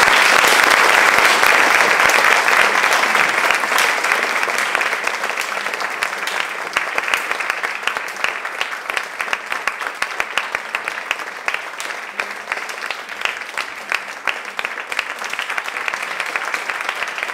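Audience applauding: dense, loud clapping at first that eases after a few seconds into sparser, more distinct claps that keep going.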